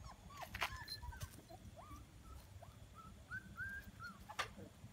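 Small dog whimpering in a run of short, high whines that bend up and down in pitch, with a few sharp clicks among them.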